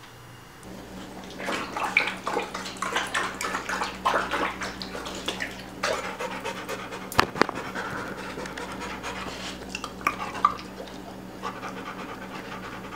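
English Springer Spaniel lapping water, a quick run of wet laps about three or four a second that stops about ten seconds in, with one sharp knock about seven seconds in.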